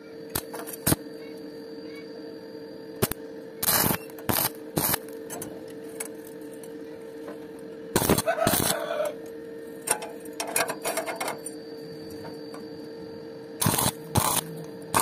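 Stick (SMAW) welding arc burning on a steel pipe joint: a steady hum with irregular sharp crackles and pops, in louder clusters a few times.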